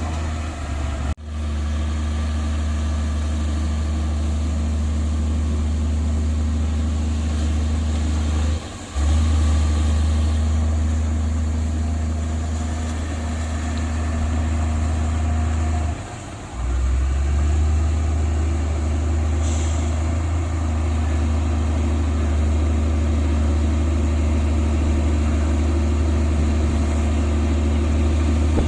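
Heavy diesel engine of earthmoving machinery running steadily with a deep drone, broken off briefly three times.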